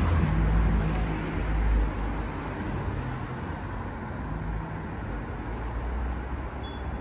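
Road traffic: a motor vehicle's engine running close by, loudest in the first two seconds, then steadier, quieter traffic noise.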